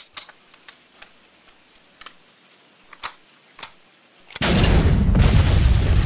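A few faint clicks, then about four seconds in a sudden, loud explosion that goes on as a heavy blast of noise without fading: an added explosion effect for a rocket striking a vehicle.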